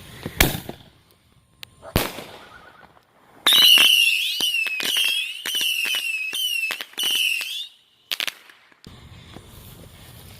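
Consumer fireworks going off: two sharp bangs, then a Saturn missile battery firing a quick run of whistling rockets, each whistle falling in pitch and ending in a crack, for about four seconds, followed by a couple more sharp reports.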